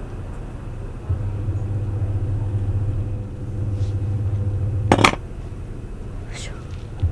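Washing machine running its wash cycle: the drum motor hums low, starting about a second in and stopping just after a sharp knock about five seconds in, then starting again near the end.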